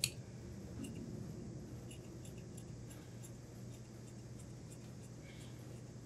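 Large tailor's shears cutting through suit-jacket lining fabric: a sharp click at the start, then a run of faint, crisp snips of the blades, over a steady low hum.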